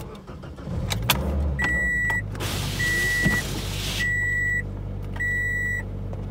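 A car engine starts and idles while a dashboard warning chime beeps about every 1.2 seconds. About two seconds in, the windshield wipers make a scraping sweep of about a second and a half, pushing slush and snow off the glass.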